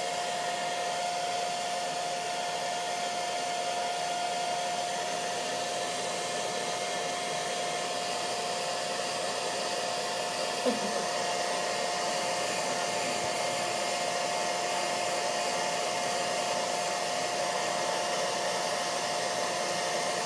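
Handheld hair dryer blowing steadily, a constant whirring hum with a steady high tone over the rush of air. A short faint sound breaks in about ten seconds in.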